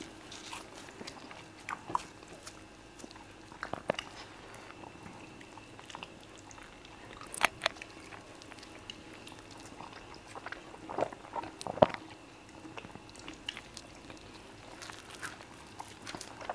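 Close-up mouth sounds of two people eating fufu, peanut spinach soup and chicken by hand: wet chewing, lip smacks and short clicks, scattered and irregular, the loudest few about three-quarters of the way through, over a faint steady hum.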